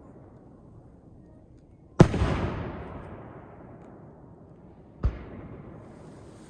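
Two aerial firework shells exploding: a loud bang about two seconds in that fades away in a long rolling echo, and a smaller bang about three seconds later.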